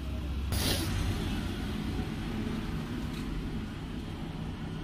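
Steady low vehicle-engine hum of street traffic, with a short hiss about half a second in.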